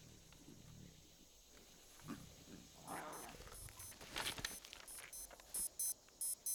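A lion growling low, then a digital wristwatch alarm beeping in quick pairs from about three seconds in, the beeps loudest near the end.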